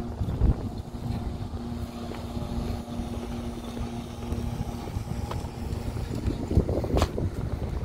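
Outdoor street sound: wind buffeting the microphone over a low traffic rumble, with a steady low hum running under it. One sharp click comes about seven seconds in.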